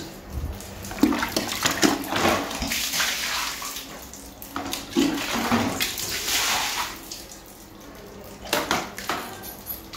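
Water splashing and running onto a tiled bathroom floor, rinsing it down, in two longer spells and a short one near the end.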